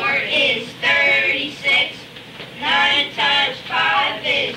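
A child's voice singing into a microphone, in short phrases with brief gaps between them.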